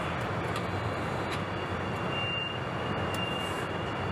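Steady truck assembly plant floor noise: machinery hum and air hiss, with a few faint clicks and a thin high tone that starts about halfway through.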